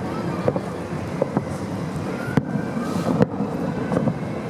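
Fireworks going off: several sharp bangs at irregular intervals, roughly a second apart, over a continuous low rumble of distant bursts.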